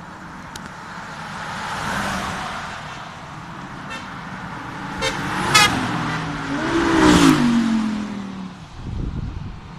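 Race cars passing close by one after another, engines revving, with a rapid crackle a little past the middle. The loudest car goes by about seven seconds in, its engine note dropping as it passes.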